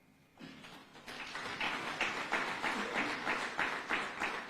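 Audience applauding, starting about half a second in and swelling to a steady clapping by about a second in.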